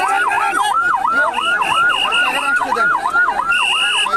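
Electronic emergency-vehicle siren in a fast yelp, its pitch sweeping up and down about four times a second without a break. A higher steady tone sounds over it in short pulses and is held for about half a second near the end.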